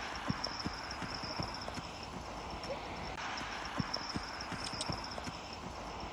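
Horse hooves clip-clopping in an even walking rhythm, about two to three hoofbeats a second, over a steady high jingling.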